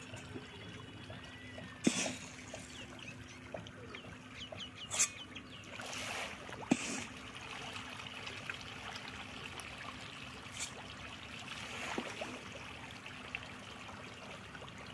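A crowd of farmed fish thrashing and splashing at the surface of the pond as they feed: a continuous patter of small splashes, with several louder splashes.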